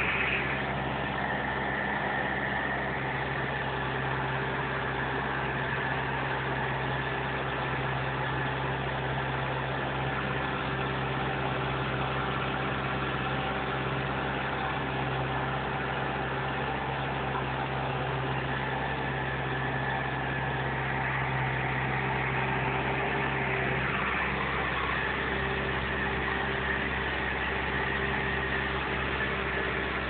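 Massey Ferguson 590 tractor's four-cylinder Perkins diesel engine running steadily under load while pulling a three-furrow plough. Its tone shifts slightly a little over three-quarters of the way in.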